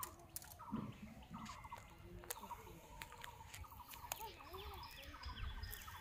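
Faint birdsong and bird calls: a short rattling call repeated over and over, a little faster than once a second, with a few lower arching calls and an occasional sharp click.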